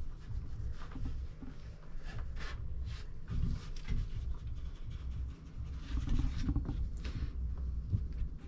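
Soft rustling with scattered light scratches and taps, a cat moving about on carpet-topped wooden shelves.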